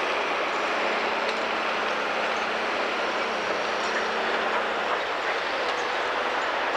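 Heavy logging machinery running: a steady, dense mechanical din, with a faint low hum for a few seconds in the middle.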